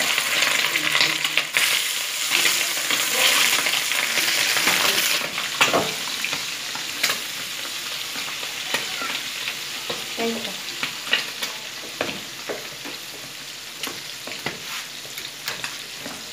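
Uncoated pieces of beef tripe sizzling in hot oil in a frying pan, with scattered crackling pops. The sizzle is loudest in the first few seconds after the tripe goes in, then settles to a quieter fry.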